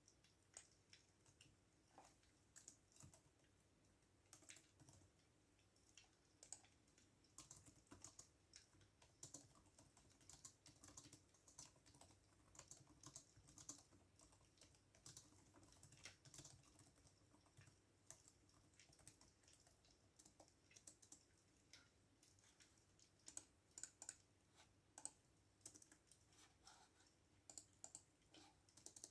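Faint computer keyboard typing: irregular runs of soft keystroke clicks broken by short pauses.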